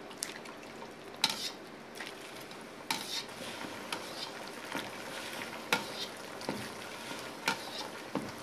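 A metal ladle scooping simmering soy-based broth and pouring it back over tuna collar in a metal pot, with sharp clinks of the ladle against the pot every second or so over the bubbling of the broth as it reduces.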